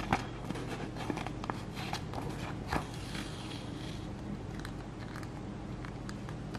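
A paper practice sheet crackling and rustling as it is handled and a needle with thread is worked through its punched holes, the thread then pulled up taut. Scattered small crackles and clicks are busiest in the first few seconds, with two sharper clicks near the start and about three seconds in.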